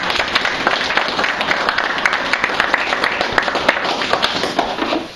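A small group of people clapping their hands in applause, the clapping dying away near the end.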